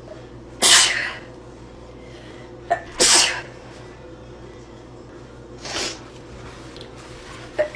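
A woman sneezing three times, about two and a half seconds apart, the third sneeze softer than the first two; a fourth sneeze starts right at the end.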